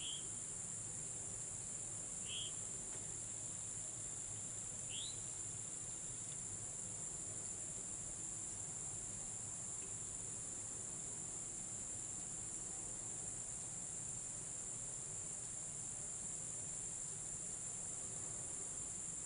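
Insects singing in a steady, high-pitched chorus. Three short rising chirps come in the first five seconds.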